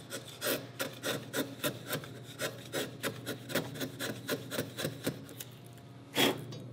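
Bench chisel paring butternut along the floor of a hand-cut dado, pushed by hand in quick short scraping strokes, about four a second, lifting shavings. A single louder knock comes near the end.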